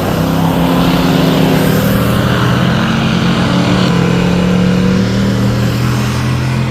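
Race car engine sound effect: several engines running at once, their pitches holding and shifting every second or two.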